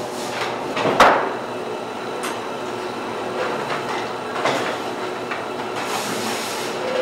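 Fish-portion processing line running: a steady clatter of conveyor belts and machinery, with one sharp, loud knock about a second in and a few fainter knocks after it.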